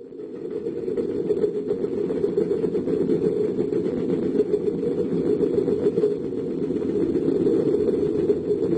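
Low, steady rumble of heavy construction machinery running, which swells up within the first second and then holds.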